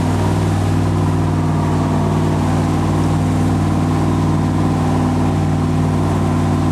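Boat motor running at a steady speed, a constant even drone with no change in pitch.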